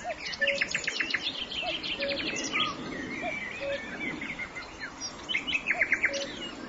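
A chorus of forest birds: many high chirps, whistles and rapid trills overlapping, with a low two-note call, the first note higher and the second lower, repeating about every second and a half.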